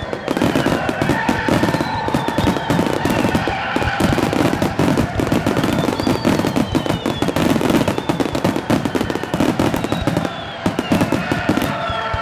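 A fireworks finale: many shells bursting in a rapid, unbroken barrage, with several whistles falling in pitch over it.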